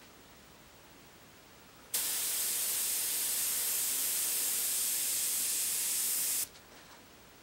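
Airbrush spraying: a steady hiss of compressed air from the nozzle that starts abruptly about two seconds in and cuts off sharply about four and a half seconds later.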